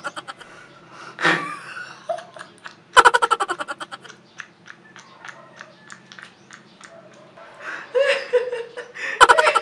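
A man laughing hard in bursts of rapid "ha-ha-ha", loudest about three seconds in and again near the end, with quieter giggling between.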